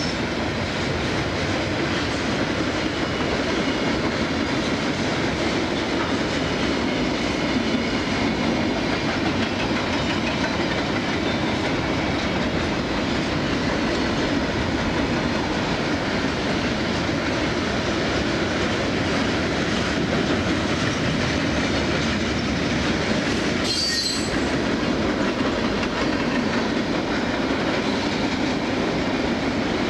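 Freight train cars, boxcars and covered hoppers, rolling steadily past on steel rails, with a brief high-pitched squeal about three-quarters of the way through.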